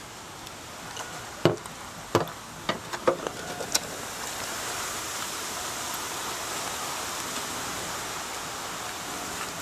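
A few light clicks and taps in the first four seconds, then a steady rushing hiss that swells about four seconds in and holds: wind gusting through the surrounding palm fronds.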